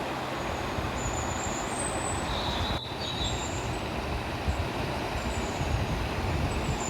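Waterfall: a steady roar of rushing, falling water with a deep rumble, with a few short high chirps over it.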